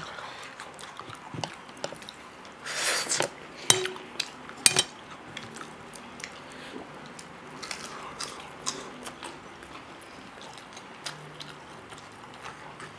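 Wooden chopsticks and fingers clinking and scraping on stainless steel plates, with quiet chewing. Two sharp clicks come about a second apart, just before the middle.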